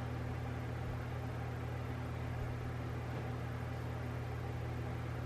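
Steady low electrical or mechanical hum with a constant hiss: the room's background noise, unchanging throughout.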